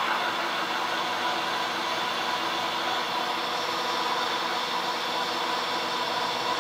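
Milling machine driving an annular cutter down through a cast iron block: a steady machining noise of spindle motor and cutting, with a constant whine.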